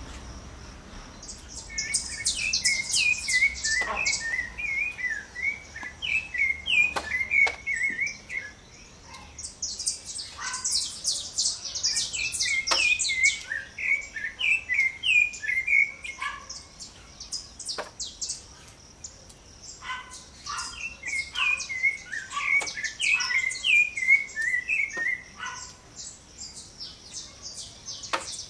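Rufous-bellied thrush (sabiá-laranjeira) singing: three long stretches of song broken by short pauses, lower warbled, slurred notes with rapid higher notes over them.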